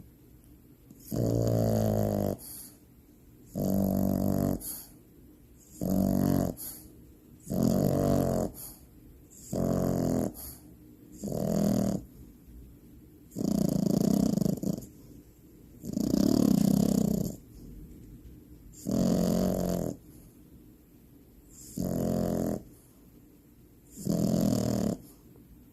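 French bulldog puppy snoring loudly in deep sleep. There are about eleven rattly snores, each about a second long, in an even rhythm with short quiet pauses between breaths.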